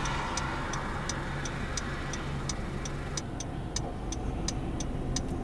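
A stopped car's turn-signal or hazard flasher clicking steadily, about three clicks a second, over the low hum of the engine idling.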